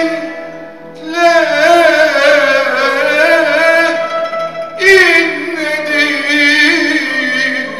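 Live Turkish art music ensemble playing a slow melody with vibrato over plucked and bowed strings. New phrases strike in about a second in and again near five seconds.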